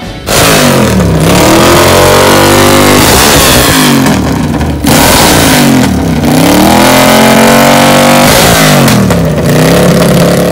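Moto Guzzi V-twin motorcycle engine with open exhausts being revved hard and loud. Its speed falls away and climbs again about four times, with a short break just before halfway.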